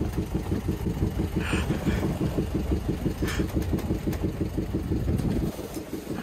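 Albin Vega sailboat's engine running with a steady rapid pulse, roughly ten beats a second, growing quieter about five seconds in.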